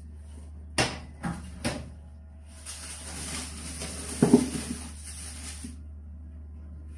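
Household items handled on a kitchen counter: three sharp clicks as a wire dish rack is knocked about a second in, then about three seconds of rustling with one loud knock in the middle.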